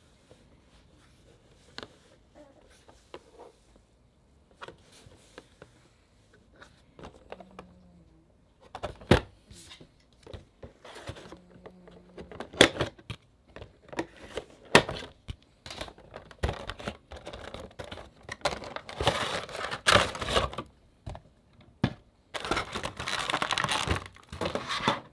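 A cardboard window box being handled and its flap opened, with light taps and then louder clicks and knocks of cardboard. Near the end the clear plastic insert crinkles loudly in two stretches as the vinyl figure is pulled out of it.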